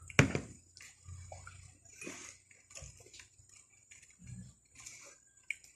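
A bowl set down on a table with a sharp knock, followed by small eating sounds: fingers picking up rice and soft chewing, with light clicks and a dull thud near the end.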